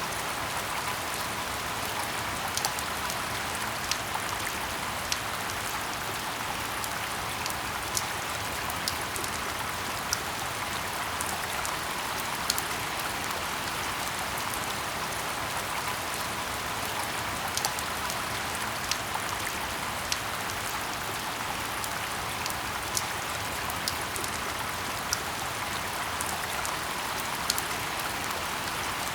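Steady rain falling in a forest: an even hiss with sharp single drop ticks standing out irregularly, about one every second or two.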